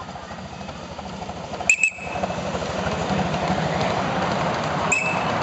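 Miniature live-steam locomotive and its passenger riding cars running past on the track, the noise of the train growing louder as it nears and passes. Two brief high-pitched squeals sound about two seconds in and again near the end.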